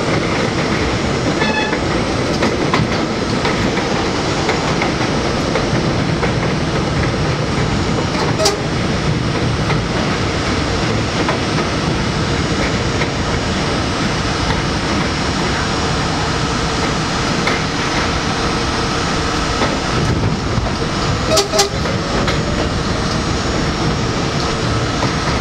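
New York City Subway J train running at speed on elevated track, heard from inside the front car: a steady rumble of wheels on rail with a faint steady whine. Sharp clicks from the track come once about eight seconds in and twice near twenty-one seconds.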